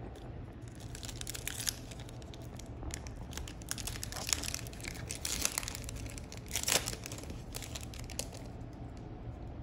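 Foil trading-card pack wrapper crinkling as it is torn open by hand: a run of crackles, the loudest a little under seven seconds in.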